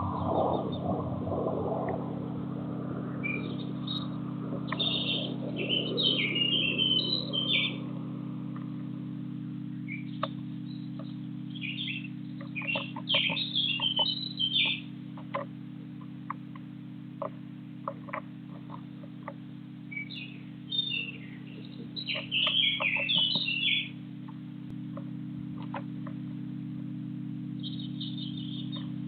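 Small garden birds chirping in several bursts of quick, high notes, over a steady low hum.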